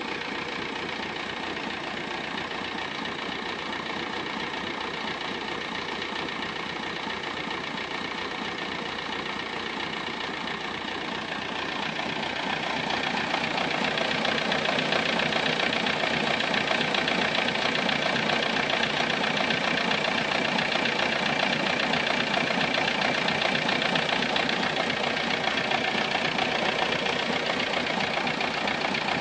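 Volkswagen Golf Mk3 engine running with an odd noise that a mechanic is asked to identify. About twelve seconds in it grows louder and stays at the higher level.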